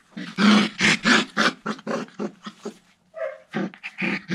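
American Collie puppies yapping and growling in quick short bursts, several a second, with a brief higher yelp about three seconds in.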